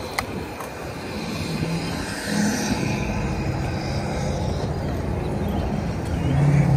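Wind buffeting the microphone of a moving bicycle, a steady low rumble of air and road noise that swells near the end.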